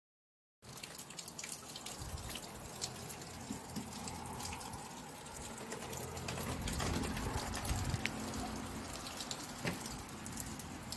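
Rain falling, with many scattered drops pattering close by over a low rumble.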